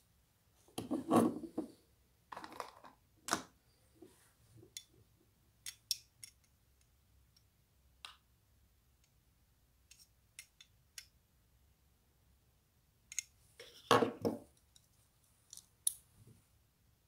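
Metal Fight Beyblade tops, metal wheels and plastic parts, being handled and twisted together by hand: scattered small clicks and rubbing, with louder bursts of handling about a second in and again near the end.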